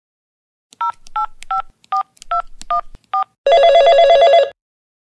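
Telephone keypad tones as a number is dialled: seven short two-tone beeps, about two and a half a second. Then an electronic telephone ring lasting about a second, the call ringing through.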